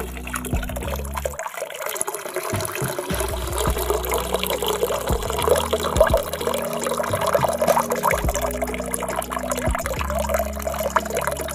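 Water running, with many small irregular splashes and drips.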